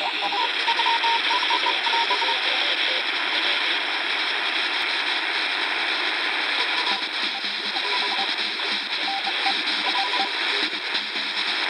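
Shortwave radio static from a Sony ICF-SW11 world band receiver tuned near 10.1 MHz. Through it comes an artificial signal of short beeps on two pitches, keyed on and off like Morse code. The beeps are clearest for the first couple of seconds, fade, and return in groups near the end.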